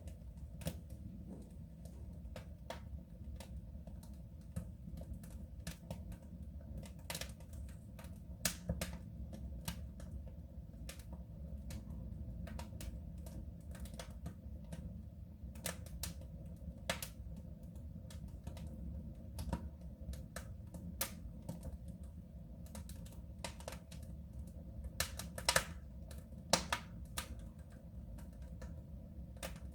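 Wood fire burning in a soapstone stove: irregular sharp crackles and pops over a low, steady rumble of the flames, with a cluster of louder pops near the end.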